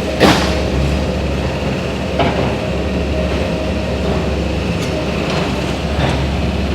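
Heavy engine rumbling steadily, with a few sharp knocks, the loudest just after the start and others about two and six seconds in.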